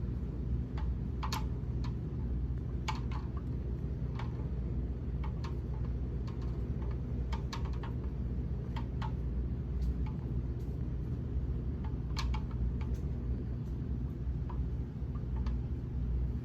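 A 42" Gulf Coast Mini Breeze ceiling fan running with a steady low hum, with light clicks at irregular intervals over it.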